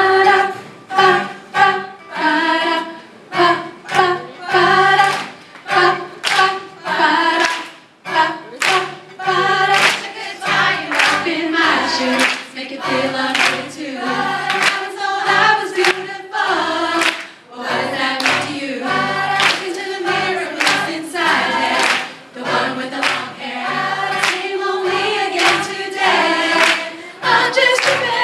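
A group of women singing together in chorus, with sharp hand claps keeping the beat about twice a second.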